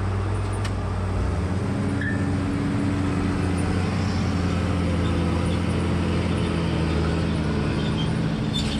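Heavy diesel engines running steadily: a grapple skidder drives up dragging a hitch of long logs while the machine at the camera runs on. The engine note shifts about a second in and then holds.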